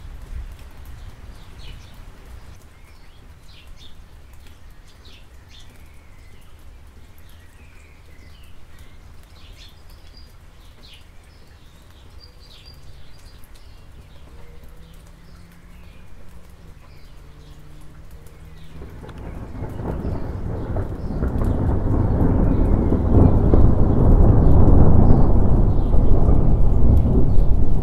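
Light rain falling steadily, with a few faint high chirps over it. About two-thirds of the way in a long roll of thunder builds, swelling into a loud rumble that carries on to the end.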